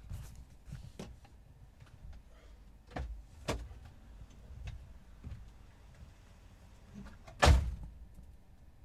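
Scattered light knocks and clicks of someone handling things inside a van, then one loud thump about seven and a half seconds in, typical of a van door being shut.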